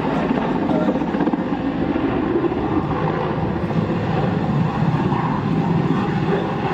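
Large transport helicopter flying low past: a loud, steady rush of rotor and turbine noise.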